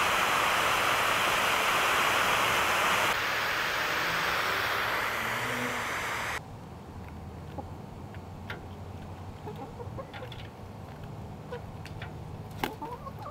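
Garden hose spraying water as a chicken waterer bowl is rinsed out, a steady hiss that cuts off suddenly about six seconds in. After it, quieter small taps and clicks as hens drink and peck at ice water in a steel bowl.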